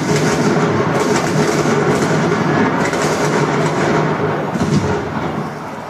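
Television sound of a large bonfire, heard through the TV's speaker: a steady, dense noise with clusters of crackles and pops.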